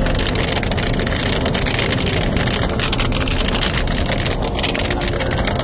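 Rain striking the windshield and body of a moving car: a dense, steady patter of many close drop impacts over road and wind noise.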